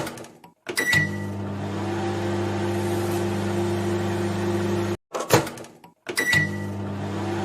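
Microwave oven: a clunk, then a click and a short high beep, followed by the steady hum of the oven running. The hum cuts off abruptly about five seconds in, and the same clunk, beep and hum sequence starts again.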